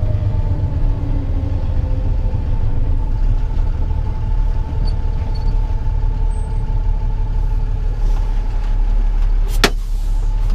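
Diesel engine of a Freightliner rollback tow truck, heard from inside the cab, running at low speed as the truck manoeuvres into a parking space: a steady low rumble with a faint steady whine over it. A single sharp click comes near the end.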